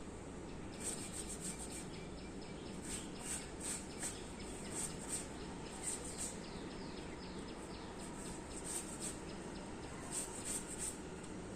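High, short chirps repeated in quick runs of about four to six, coming every second or two, over a steady hiss of outdoor background noise.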